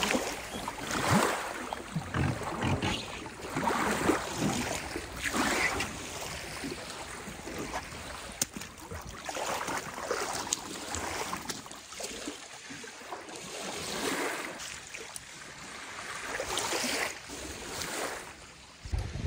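Small lake waves lapping and sloshing, rising and falling in swells every second or two, with wind.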